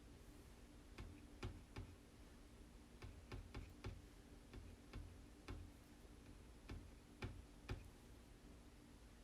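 Light, irregular clicks and taps of small craft tools being handled while working chalk paste, about fifteen in a few seconds, over a faint steady hum.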